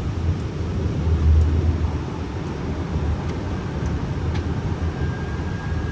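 Steady flight-deck noise of an Airbus A320 on approach: a low rumble of airflow and engines. A faint steady high tone comes in after about four seconds.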